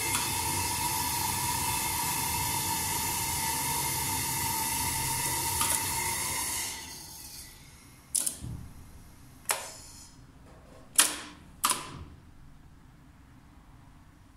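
The 1993 Schindler elevator's hydraulic drive runs with a steady hiss and whine, which fades out about seven seconds in. Then the control cabinet's AEG contactors click sharply four times as they switch.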